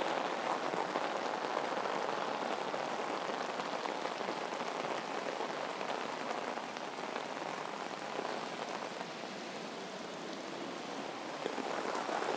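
Heavy tropical downpour falling on a flooded road and on an umbrella overhead: a dense, steady hiss of rain. It eases a little about eight seconds in and picks up again near the end.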